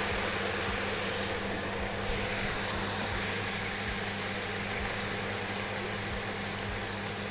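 Matchstick-cut potatoes deep-frying in hot oil in a frying pan: a steady, even sizzle as the batch goes in and is stirred with a spatula, over a low steady hum.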